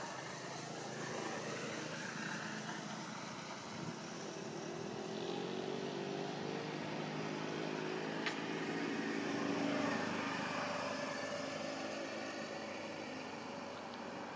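Engine of a passing motor vehicle, a low hum that swells over several seconds and then fades, over a steady background hiss. A single sharp click partway through.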